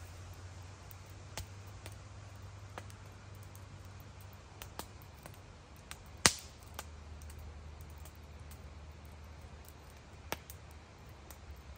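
Campfire crackling: scattered sharp pops at irregular intervals, the loudest about six seconds in.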